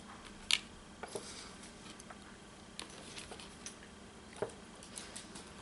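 Quiet handling noise from the disassembled folding knife's parts being cleaned over a paper plate: a few small sharp clicks and taps, the loudest about half a second in, with faint rubbing of the cotton swab.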